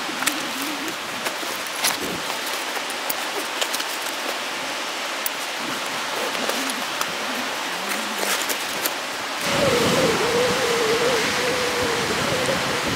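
Backpack being packed and strapped up: fabric handling and a series of sharp clicks from plastic buckles and straps over a steady hiss. About three-quarters through, it changes abruptly to a louder steady wind-like rush with a faint wavering tone.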